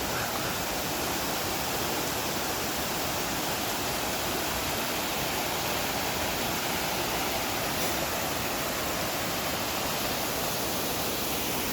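Waterfall rushing in a steady, even roar of falling water, heard close up.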